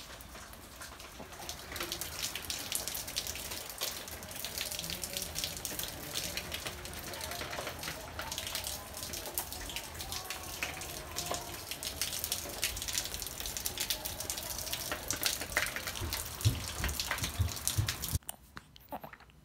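Rain pouring down, heard from under a covered patio: a dense patter of drops that grows louder about two seconds in and cuts off abruptly near the end.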